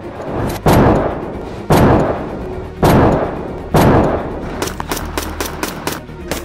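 Four single shots from a short-barrelled CZ Bren rifle in 7.62x39, about a second apart, each with a long echoing tail. A fast run of quieter, sharper cracks starts near the end.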